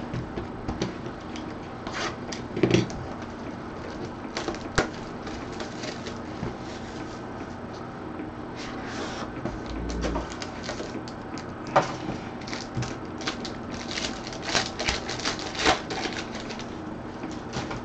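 Handling of a Gold Standard football card box and its gold foil pack: scattered clicks and taps, with bursts of crinkling and tearing foil that are busiest near the end.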